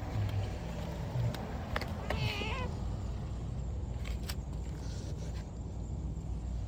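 A cat meowing once, a short wavering call about two seconds in, over a steady low rumble and a few light clicks.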